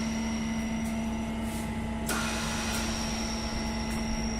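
Electric motor of a TAIDA SDT-303 tyre changer running with its drive belt off, a steady hum. A click about two seconds in.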